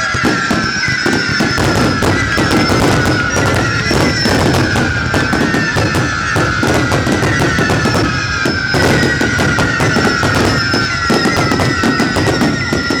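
Fireworks display: a dense, continuous barrage of bangs and crackles, with several whistling tones that slowly fall in pitch. One set of whistles fades and a new one starts about nine seconds in.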